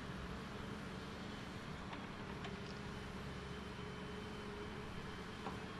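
An engine running steadily: a low, even hum with a few faint knocks.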